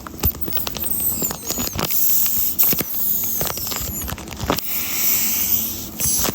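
A paper squishy made of taped paper, squeezed and handled close to the microphone: crinkling paper and tape with many small crackles and short high squeaks.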